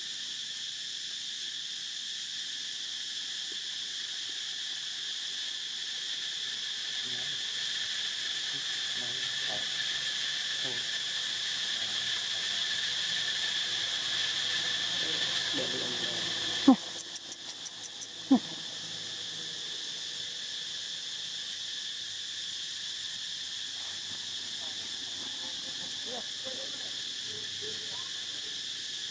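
Steady insect chorus, a continuous high buzz. About halfway through, two sharp clicks a second and a half apart come with a quick run of ticks between them, and the buzz is weaker afterwards.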